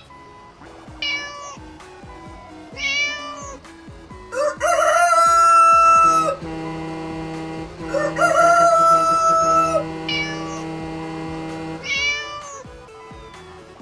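Cat meows, short and repeated, alongside two longer, louder animal calls, over background music with steady held notes.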